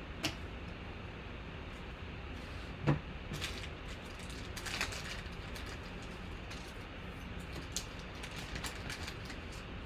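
Trading cards and a pack of plastic card sleeves handled on a table: light taps and short crinkly rustles, the sharpest tap just before three seconds in, over a steady low hum.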